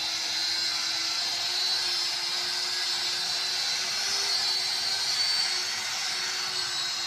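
A small high-speed power tool running steadily, with a high whine that wavers slightly in pitch over a hiss and a faint lower hum.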